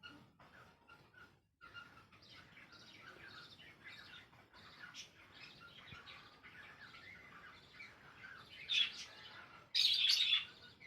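Cockatiel chirping and chattering in a steady run of short warbled notes, with two louder calls near the end.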